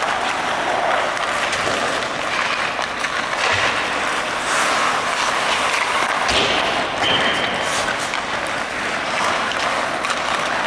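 Ice hockey practice rink sound: a steady scraping hiss of skates on the ice, with a few knocks of sticks or puck. A brief high steady tone comes about seven seconds in.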